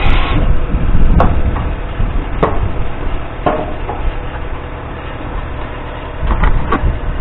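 A compressed-air blast into a tractor fuel tank cuts off just after the start. It is followed by a handful of sharp knocks and clunks, two of them close together near the end, over a low rumble.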